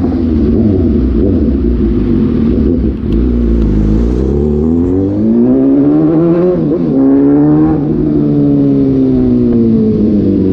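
Suzuki GSX-S750 inline-four engine through an SC-Project muffler with the dB killer removed. It runs with a steady rumble, then the revs climb for about three seconds past the middle, hold briefly, and fall away toward the end.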